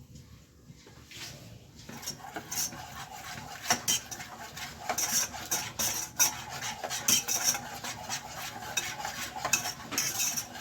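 A utensil stirring béchamel sauce in a pan, flour and butter roux with milk just added, scraping and clinking against the pan in quick irregular strokes that start about two seconds in.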